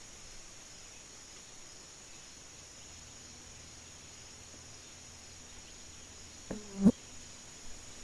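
Steady, high-pitched chorus of insects in the woods. A faint low hum comes in about three seconds in, and near the end a single brief, loud low-pitched sound cuts across it.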